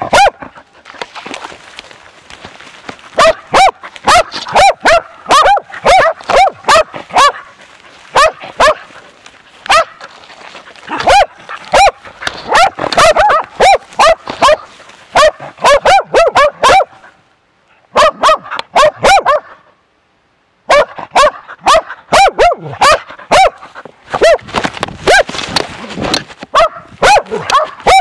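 Bear dog baying at a bear: loud, close barking, about three barks a second, with two short breaks in the second half.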